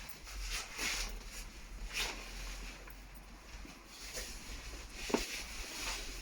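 Faint rustling and light handling noises of small phone parts being fitted by hand, a few soft scrapes about a second apart, over a low steady hum.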